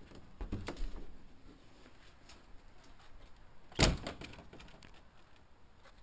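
Plastic portable toilet door being pushed open with a few light knocks and rattles, then slamming shut with one loud bang a little under four seconds in.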